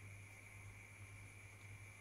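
Near silence: room tone with a steady low hum and a faint steady high-pitched whine.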